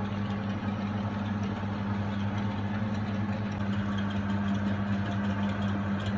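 A workshop machine running steadily: a constant low hum with a hiss over it and no change in speed.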